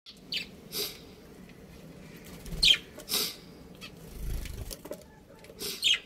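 Small caged parrots, budgerigars with a Fischer's lovebird, giving short, sharp chirps, about five spread over several seconds, some sliding down in pitch.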